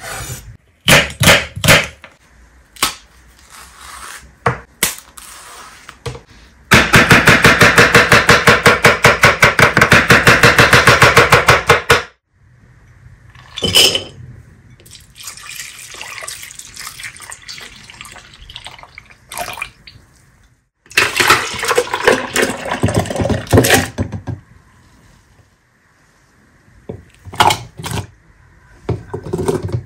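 Kitchen prep sounds. A chef's knife cuts through an apple onto a wooden chopping board, then chops in a fast, even run of strokes for about five seconds. After that, milk is poured into a glass bowl of dried fruit and nuts, with more clatter of kitchen things later on.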